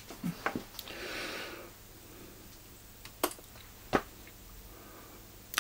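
Kenwood TS-50 transceiver being switched on: a few faint, sharp clicks from the power button and the set starting up. There is a short soft hiss about a second in, over quiet room tone.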